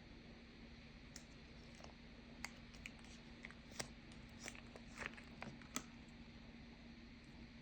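Faint, irregular small clicks and taps, about a dozen scattered through, over a steady low hum.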